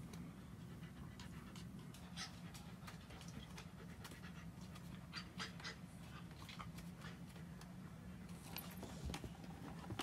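Ginger kitten purring steadily while being stroked on the head, with faint rustles of the hand moving over its fur.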